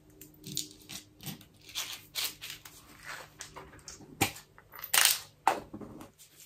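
Packaging being handled: a series of irregular crinkling and rustling noises, loudest a little past the middle.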